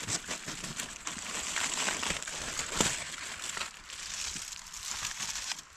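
Aluminium foil crinkling and rustling as it is handled, with many small crackles.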